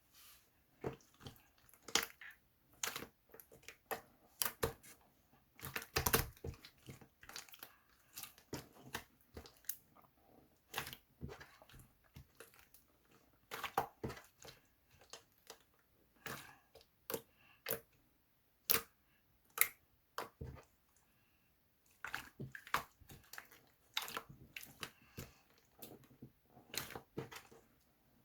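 Strawberry yogurt slime being squeezed and poked by hand, making irregular sticky clicks and pops in clusters, with a short lull about two-thirds of the way through.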